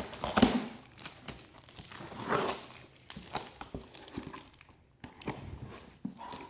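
Packaging crinkling and rustling as a box is opened and its contents handled, with scattered small taps and clicks. The loudest rustles come about half a second in and again a couple of seconds in.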